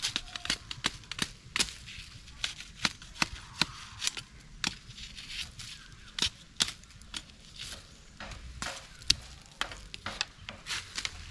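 Dry bamboo and sticks cracking and knocking in sharp, irregular strikes, two or three a second.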